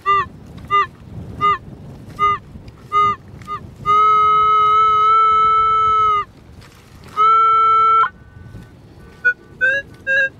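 Metal detector tones on a strong target: a string of short beeps about three-quarters of a second apart, then a long held tone of about two seconds and a shorter one of about a second, then quicker, higher-pitched chirps near the end. It is the strongest target signal in over an hour on very dry ground.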